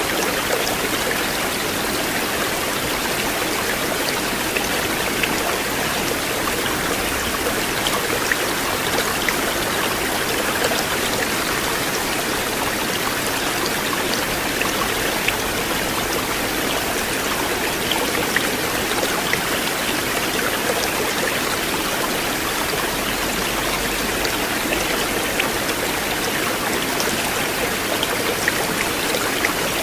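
River water flowing steadily: an even rush with small splashing ticks scattered through it.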